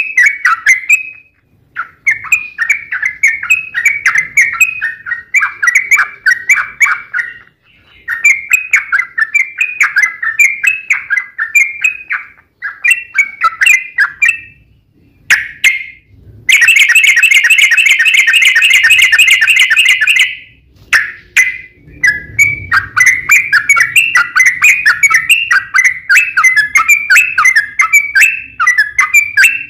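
Yellow-vented bulbul (trucukan) singing in combative, rapid phrases of quick chirping notes with short pauses between them. About sixteen seconds in comes a loud, dense rapid trill lasting about four seconds.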